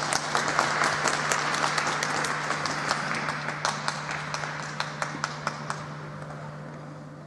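Spectators applauding with many individual hand claps at the end of a figure-skating program, the applause slowly dying away.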